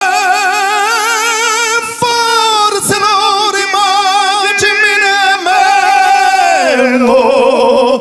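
Two male voices, one a lyric tenor, singing an Italian duet in harmony with wide vibrato on long held notes, sliding down to a lower held note near the end.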